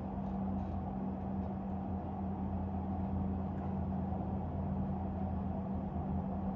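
Steady low mechanical hum at a constant pitch, unchanging throughout.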